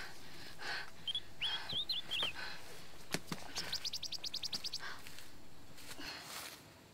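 Birds calling: a few short sliding chirps, then about a second later a fast trill of about a dozen high notes. Intermittent rustling of leaves and brush runs under them.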